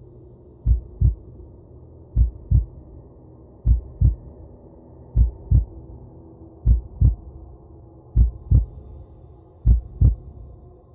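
A slow heartbeat sound effect: paired low thumps, lub-dub, repeating evenly about every one and a half seconds, seven times, over a faint steady hum.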